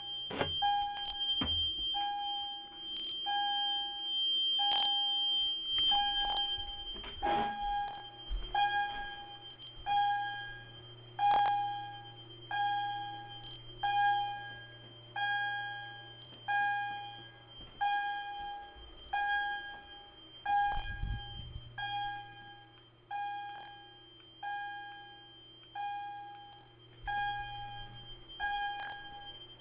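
Fire alarm system sounding during a system test: the alarms give a repeated pulsed tone, about one pulse every 1.3 seconds. A steady high tone runs under the pulses for the first several seconds.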